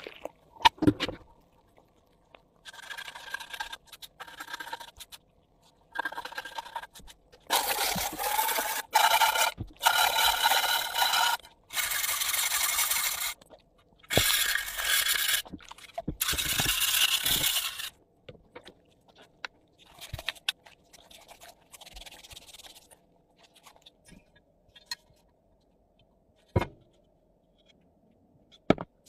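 Rusty steel flashlight part being scrubbed and rinsed with water after electrolytic rust removal. It comes as a run of separate scraping, splashing strokes, each a second or two long with short gaps between them, followed by a few scattered clicks.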